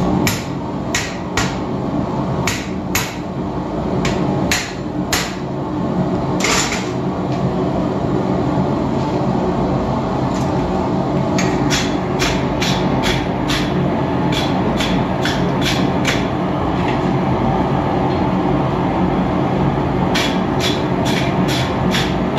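Hand hammer striking hot steel bar stock on an anvil while forging: a slow run of blows, about one or two a second, then after a pause two quicker runs of about three blows a second, the later one near the end. A steady low roar runs underneath.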